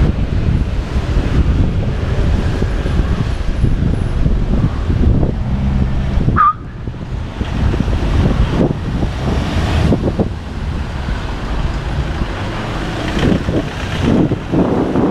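Wind buffeting the microphone of a camera on a moving bicycle, mixed with road traffic noise. About six and a half seconds in, the rush drops suddenly and there is a short high squeak.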